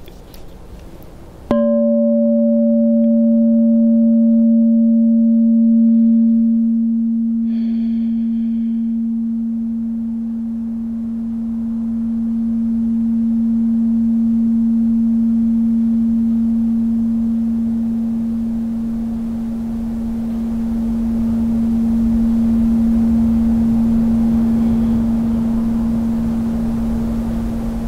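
Large white frosted crystal singing bowl struck once with a mallet, then ringing on with one deep, steady tone that slowly swells and fades. A higher overtone dies away about six seconds after the strike.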